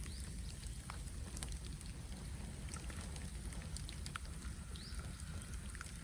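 Bamboo bonfire burning: a steady low rumble of flames with scattered sharp crackles and pops from the burning bamboo.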